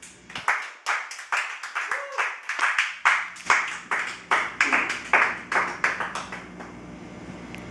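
Hand clapping close to the microphone, about three or four claps a second, with a few voices mixed in. The clapping stops about six and a half seconds in, leaving a steady low hum.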